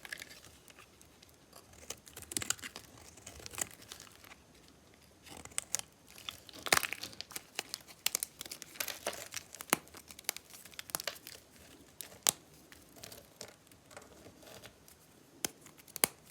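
Dry bar soap being cut, giving a crisp, crumbly crackling with irregular sharp snaps; the loudest snap comes about seven seconds in.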